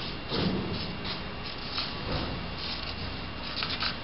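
Sharpie marker writing on the rough top of a concrete beam: a series of short, scratchy strokes as the letters are drawn.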